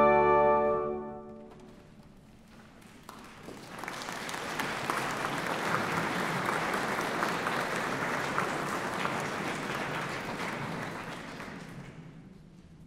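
The closing chord of an ensemble of kanklės zithers, recorders and strings rings out and dies away in the first second or two. After a short pause, audience applause rises about three to four seconds in, holds, and fades out near the end.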